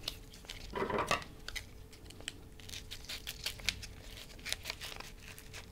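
Plastic florist ribbon crinkling as it is folded and pressed flat by hand, then scissors snipping through it, heard as a run of small sharp clicks and crackles.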